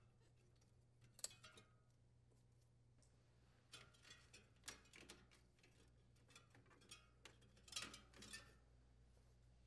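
Faint, scattered clicks and snips of hand-held wire cutters cutting the old defrost heater's wires at the evaporator, with a small cluster of sharper clicks about eight seconds in.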